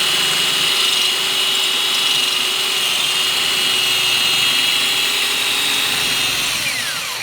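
Electric drill running at a steady speed while a bit is pressed into a steel car frame, then spinning down with a falling whine shortly before the end. The bit is making little headway through the hard steel.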